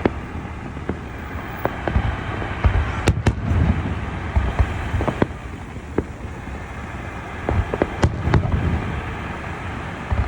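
Aerial fireworks going off: a steady rumble of bursts with many sharp cracks and bangs at irregular intervals, the loudest about three seconds in and about eight seconds in.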